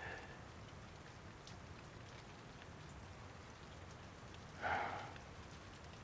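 Steady light rain pattering, a faint even hiss, with one short breath-like sound just under five seconds in.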